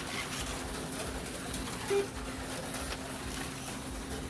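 HO-scale slot cars running on the track with a steady low hum, and one short low blip about two seconds in.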